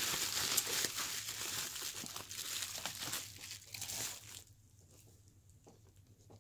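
Bubble wrap crinkling and rustling in the hands as a boxed vinyl figure is pulled out of it, stopping about four and a half seconds in, followed by a few faint handling taps.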